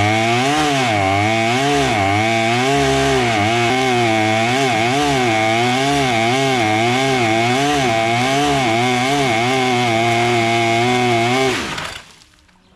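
Stihl 088 chainsaw's large two-stroke engine running hard, driving a longtail propeller that churns and sprays water in a tank, on its first test run. The revs swing up and down about once a second, then the engine is shut off near the end and winds down.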